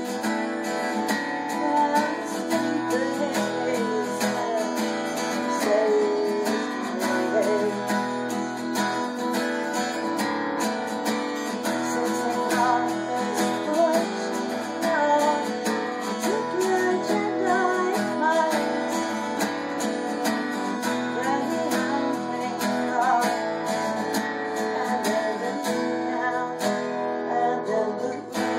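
Two acoustic guitars strummed together, with a woman singing over them.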